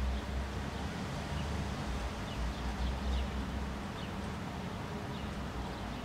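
Low rumble of distant thunder for the first four seconds or so, then easing off, over a steady hiss. A few faint bird chirps come through around the middle.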